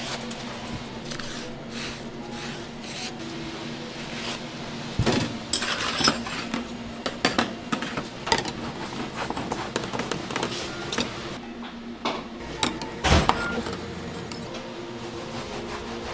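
Light rustling of parchment paper peeled off a sponge cake, then a run of knocks and clanks as metal levelling bars are handled and set down on a stainless steel worktop, the loudest about 13 seconds in. A steady machine hum runs underneath.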